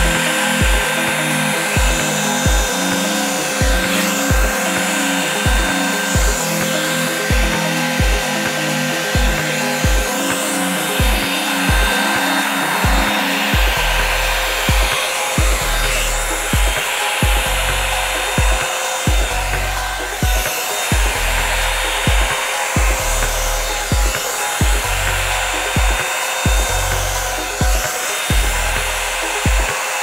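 Revlon One-Step hair dryer brush blowing steadily on its cool setting, an even rush of air, over background music with a steady beat of about two thumps a second that shifts to a heavier bass line about halfway through.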